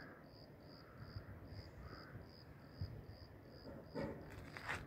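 A cricket chirping faintly and steadily, short high chirps about two to three a second. A brief faint voice comes in near the end.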